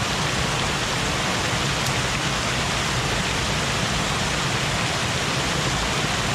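Steady rush of floodwater pouring over a dam as a small waterfall, swollen by heavy rain.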